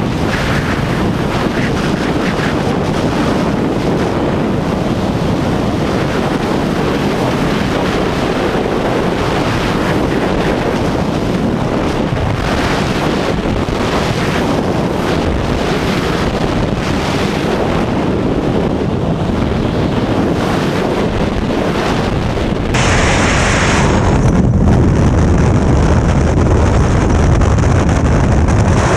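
Freefall wind rushing hard over a hand-held action camera's microphone during a tandem skydive: a loud, steady roar of air. Near the end it shifts abruptly to a slightly louder, lower rush.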